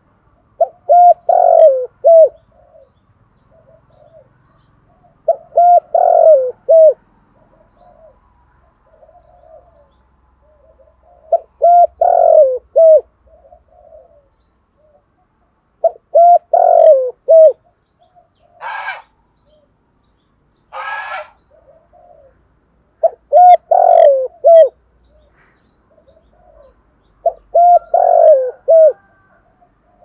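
Male spotted dove cooing in the deep 'thổ' voice prized by Vietnamese dove keepers, a decoy bird's call meant to lure wild doves. Six phrases of several notes each come about every five seconds, with softer notes between them and two brief noisy rustles near the middle.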